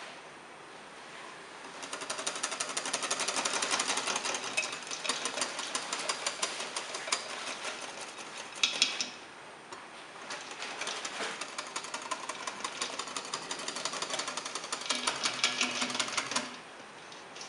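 Wire balloon whisk beating cream by hand in a bowl: rapid, even rattling strokes against the bowl in two long runs, with a short pause about halfway.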